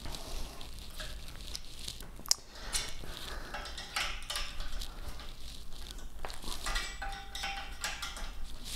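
Hex key clicking and scraping against 1/4-20 bolts and aluminium T-slot extrusion as the fasteners at a frame joint are turned, with one sharp metallic click a little over two seconds in.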